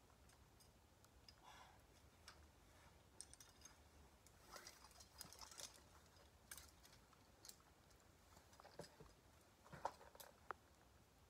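Near silence broken by scattered faint clicks and taps, the sharpest a couple of seconds before the end.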